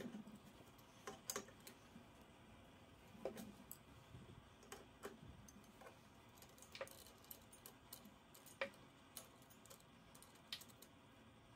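Faint, scattered metallic clicks and taps, about a dozen at irregular intervals, as a brass fire extinguisher valve head is turned loose by hand and a steel adjustable wrench is handled.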